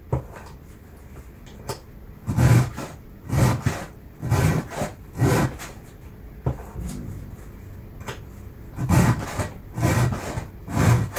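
Hand file being drawn across the cutter teeth of a chainsaw chain: four rasping strokes about a second apart, a pause of a few seconds, then three more near the end.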